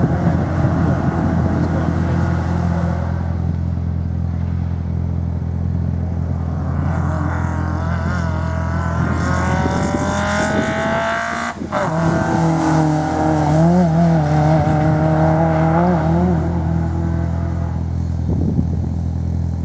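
Rally-prepared Ford Fiesta's engine under hard acceleration over a steady low drone: the revs climb, cut off abruptly about halfway through as if for a gear change, then pick up and waver again.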